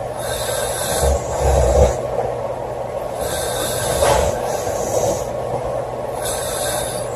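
A girl snoring loudly in her sleep: low rattling snores alternate with hissing breaths, one breath cycle about every three seconds.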